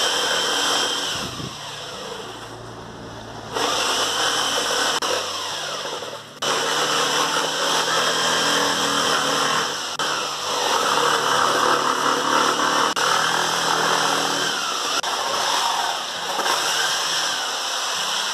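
Bosch jigsaw with a T118A metal-cutting blade sawing through a car tyre's rubber and steel belt, the motor running loudly and steadily. It eases off for about two seconds a second in, and dips briefly again around six seconds.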